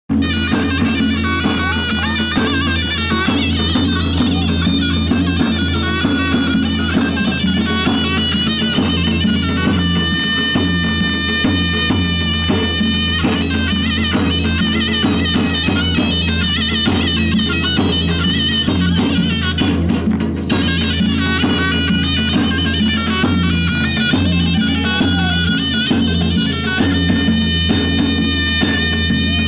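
Loud folk dance music led by a reedy, bagpipe-like wind instrument playing a continuous melody over a steady low accompaniment.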